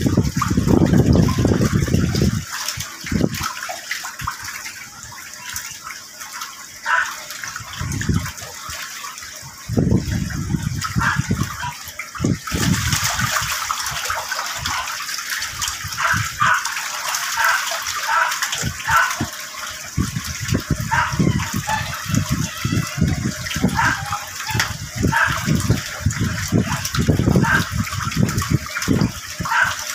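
Water gushing and splashing in a concrete catfish pond, with a steady rushing hiss from about twelve seconds in and scattered short splashes. Wind rumbles on the microphone in the first two seconds and now and then after.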